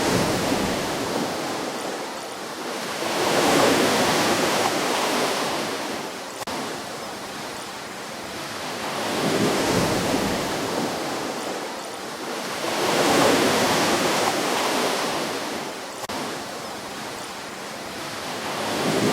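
Ocean waves breaking and washing onto a beach, each swell rising and falling off in a slow rhythm of roughly one wave every four to six seconds, with a steady wash of surf between them.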